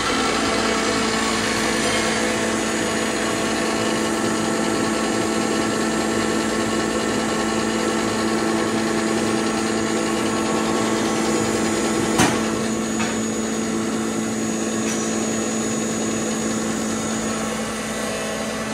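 Electric jeera (cumin) grinding machine, a stainless steel pulverizer, running steadily at a constant pitch while cumin seeds are fed into its hopper and ground. A single sharp click about twelve seconds in.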